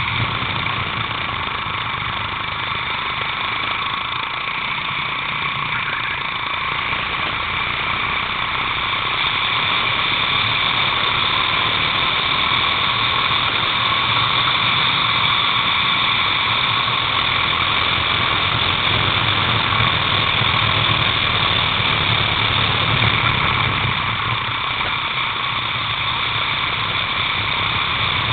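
Racing kart engine heard from a camera mounted on the kart, running continuously at a fairly steady high pitch as the kart laps the track, with a slight dip in level near the end.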